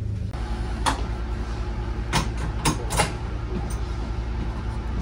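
KiHa 40 diesel railcar's engine running with a steady low rumble while the car stands at the station. Four sharp clicks come in the first three seconds, the last two close together.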